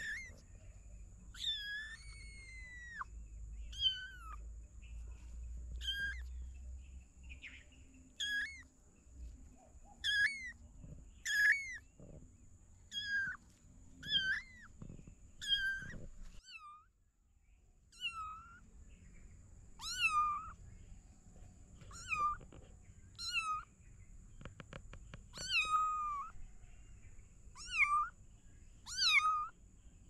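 Young kittens meowing over and over in short, high-pitched mews, about one every second or two.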